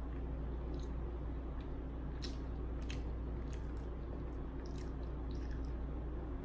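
Close-up chewing of a soft omelet, with wet mouth clicks and smacks scattered through, over a steady low hum.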